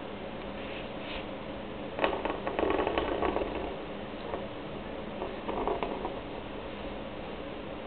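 Ballpoint pen drawing on a sheet of paper on a desk: scratchy pen strokes in a longer burst about two seconds in and a shorter one about five and a half seconds in, over a steady low hum.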